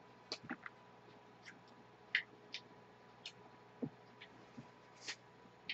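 Faint, scattered clicks and taps of a fork and the cake's board being handled on a table, about a dozen separate ticks, over a faint steady tone.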